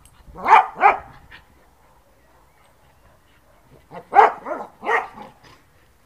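A dog barking at the ball it is playing with: two quick barks just after the start, then a run of four or five about four seconds in.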